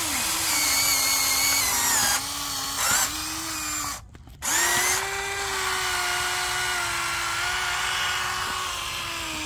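Huina remote-control toy excavator's electric motors whining as its arm and bucket dig into soil. The whine shifts down and back up in pitch as it works, and cuts out briefly about four seconds in before starting again.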